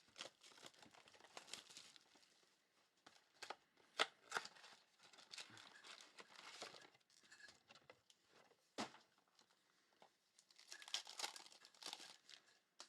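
Faint crinkling and tearing of plastic wrapping as a box of trading cards and its packs are opened, with a few sharp snaps, the clearest about four seconds in and again near nine seconds.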